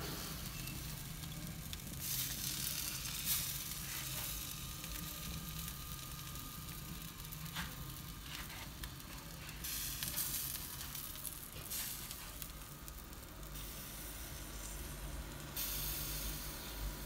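Fat sizzling and hissing from meat roasting on a turning spit over wood embers, with a few sharp crackles. The hiss grows louder and softer in stretches.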